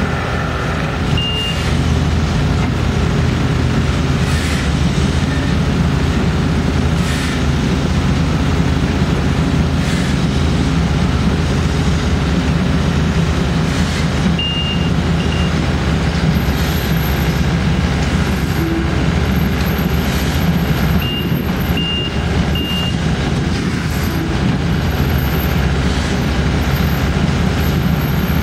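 Heavy machinery engines running steadily under work, with a few short reversing-alarm beeps (once, then twice, then three in a row) and occasional knocks.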